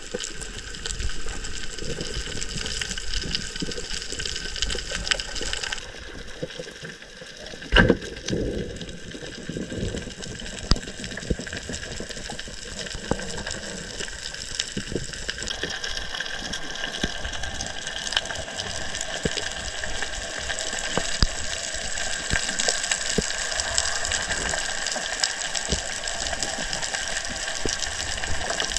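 Rushing, gushing water with many scattered clicks, its character shifting suddenly about six and again about fifteen seconds in. A single loud knock comes just before eight seconds in.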